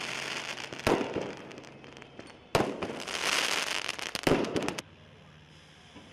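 Riot police guns firing less-lethal rounds: three sharp shots about a second and a half apart, each trailing off in a rush of noise.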